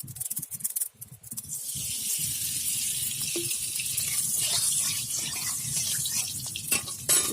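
Oil heating in a kadai, sizzling and spitting: scattered crackles, then a steady sizzle from about a second and a half in, with a sharp pop near the end.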